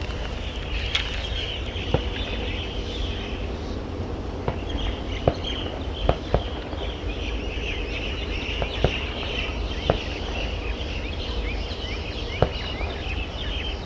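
Many small birds chirping continuously over a low steady rumble, with sharp clicks every second or two.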